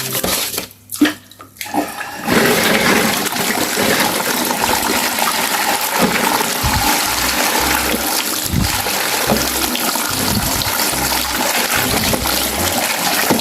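Running water rinsing sand off a toy truck: a steady rush of water that starts about two seconds in, after a brief quieter moment.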